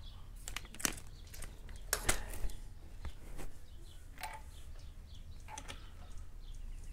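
Scattered light clicks and knocks from handling, as the camera is moved and set up over the open engine, over a low steady hum.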